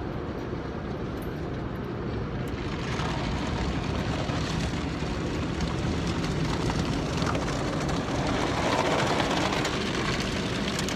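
Automatic car wash heard from inside the car's cabin: a steady rush of water spray and machinery against the car, growing louder and hissier a couple of seconds in.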